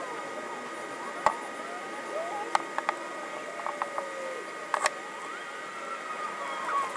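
Thin wooden cutouts being handled, glued and pressed down onto boards: a few light clicks and taps, with faint squeaky sliding sounds, over a steady faint high whine.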